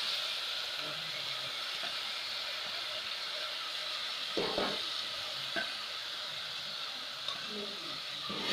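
Cumin seeds and a bay leaf sizzling steadily in hot oil in a steel pot, with a ladle stirring and knocking against the pot, most sharply about four and a half seconds in.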